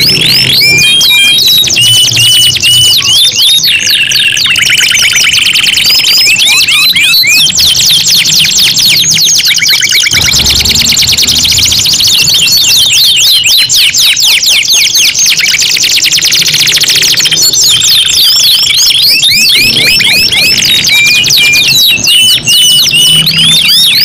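Several domestic canaries singing loudly at once, in long, fast, high trills and rolling phrases that overlap without a break.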